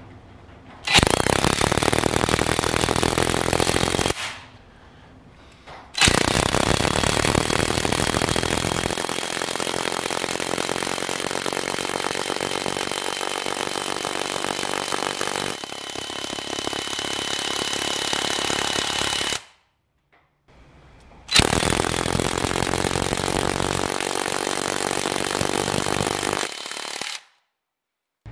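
Two cordless impact wrenches, a DeWalt DCF894 and a Parkside PASSK 20 Li A1, hammering together as they drive long screws into a wooden log. There are three runs of about three, thirteen and six seconds, each starting and stopping suddenly.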